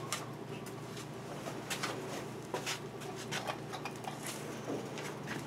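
Homemade CNC router's servo-driven linear slides moving a spring-loaded pen over paper while plotting: a steady servo hum with irregular light clicks and ticks scattered throughout.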